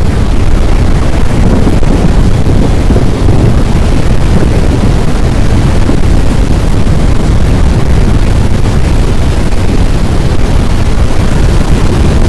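Loud, steady roar of strong tornado winds buffeting the microphone, heaviest in the low end, with no pitch to it; it cuts off abruptly at the very end.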